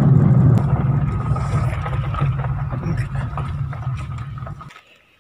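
Car running on the road, its low drone heard from inside the cabin, fading gradually and then stopping abruptly near the end.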